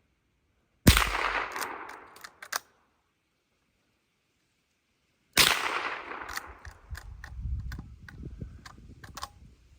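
Two shots from a 1951 Marlin 39A lever-action .22 rimfire rifle, about four and a half seconds apart. Each shot is followed by a short ringing tail and a few sharp clicks.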